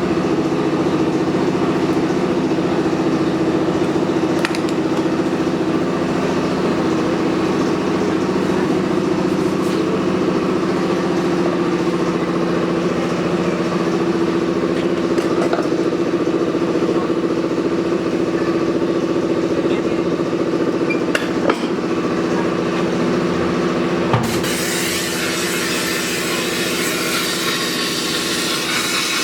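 A motor or engine running steadily, a low even drone, with a few light clicks and knocks. About 24 seconds in, a hissier, brighter noise takes over.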